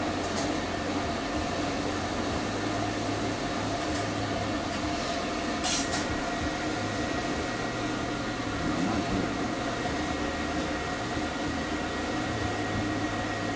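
Dog-grooming stand dryer running steadily, blowing air with a constant hum and whine. There is a short hiss about six seconds in.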